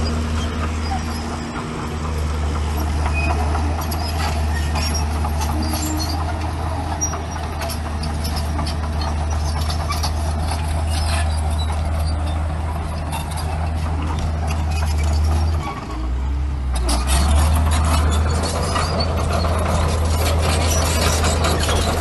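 Komatsu bulldozer's diesel engine running steadily under work, with many sharp clicks and knocks over it. About three-quarters of the way in the sound dips briefly, then comes back louder and harsher.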